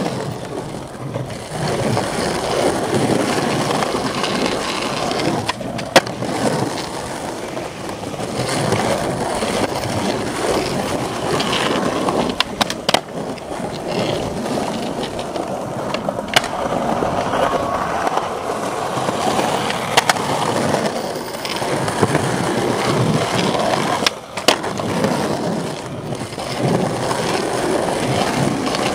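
Skateboard wheels rolling over rough street asphalt, a steady coarse rolling noise, with a few sharp clacks of the board scattered through.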